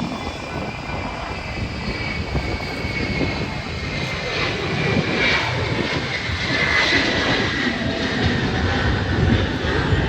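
Jet aircraft engine noise from a display flight: a steady rumble with a high whine that slowly falls in pitch as the aircraft passes.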